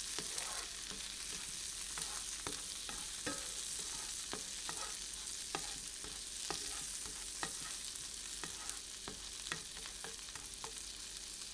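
Chopped garlic sizzling in melted butter in a nonstick frying pan while a spatula stirs it: a steady high hiss with frequent small clicks and crackles.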